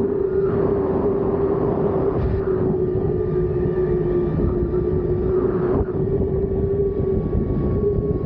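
ZipRider zip line trolley rolling fast along its steel cable: a steady whine from the running pulleys that dips slightly in pitch midway, over a dense rushing rumble.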